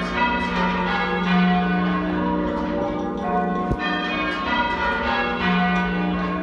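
Church bells rung in full-circle change ringing, half-muffled: one stroke of each bell rings out open and the other is dulled by a leather muffle on the clapper. The bells strike one after another several times a second, their tones overlapping and hanging on. This is the way bells are rung for mourning or remembrance.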